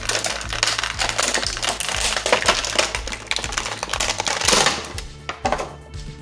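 Clear plastic bag crinkling and crackling as an action figure is worked out of it, stopping near the end, over background music.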